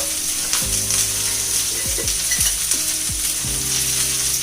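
Cauliflower frying in oil in a cast-iron skillet: a steady sizzle, with short strokes of a spoon stirring it every second or so.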